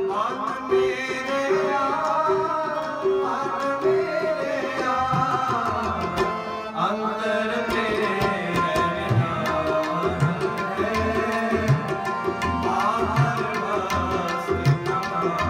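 Background music: drum strokes under a gliding melodic line.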